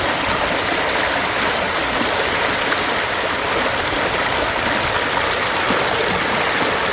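Creek water running steadily over rocks, a constant splashing rush.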